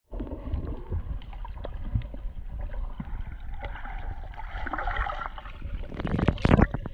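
Water heard underwater through a GoPro Hero 7 Black: muffled, continuous sloshing and gurgling with a low rumble and small scattered clicks, as a swimmer moves through the water. A few louder bursts of water noise come about six seconds in.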